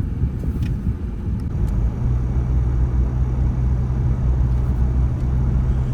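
Vehicle engine and road noise heard from inside the cab while driving, a steady low drone that settles into an even hum about two seconds in.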